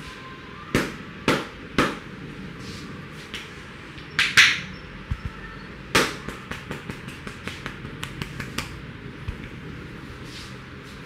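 Sharp slaps and pats of a barber's hands on the head during a loud Indian head massage: three firm strikes a little under a second in, a louder pair near four seconds, one more hard strike, then a quick run of lighter taps at about five a second.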